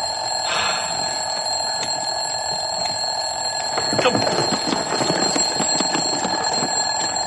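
An alarm clock ringing continuously inside a wrapped gift box, with rustling and handling noises from about four seconds in as the box is lifted and fumbled with.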